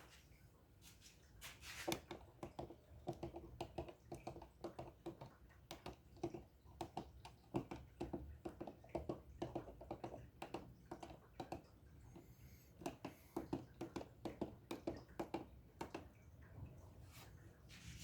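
Keys of a keyboard being pressed in quick, irregular succession: short clicks and taps, several a second, with a brief pause about two-thirds of the way through.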